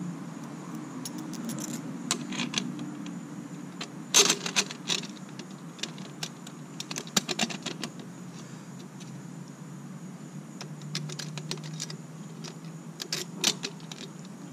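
Small metal hardware clicking and clinking, loudest about four seconds in: a silicon bronze bolt, washers and a nut being handled and fitted to the metal clamp ring of a wet-niche pool light. A steady low hum runs underneath.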